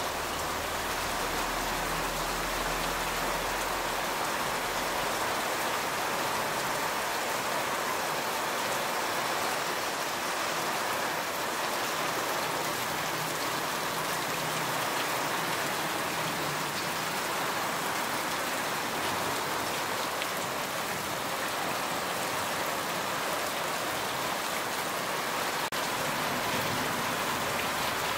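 Heavy rain falling steadily, an even hiss of drops hitting the ground, plants and a parked car.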